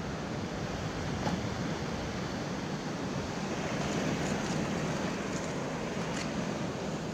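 Steady wash of surf and swell breaking on a rocky shore, with a few faint light clicks.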